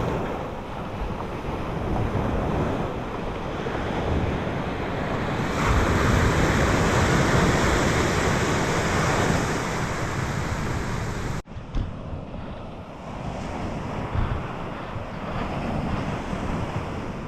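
Surf breaking and washing on a beach, with wind buffeting the microphone. The sound cuts off abruptly about two-thirds of the way through and carries on duller.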